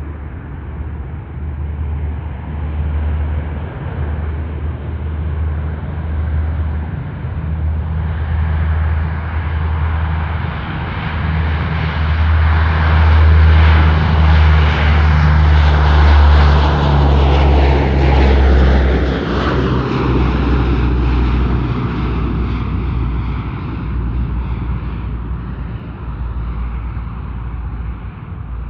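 An airplane passing close by. Its engine sound swells to a peak about halfway through, then the pitch falls as it goes past and fades.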